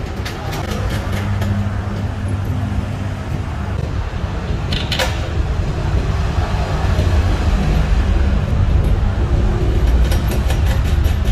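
Steady low rumble of workshop machinery, with small metal clicks and one sharper clink about five seconds in as steel nuts and washers are handled on a compressor's steel base.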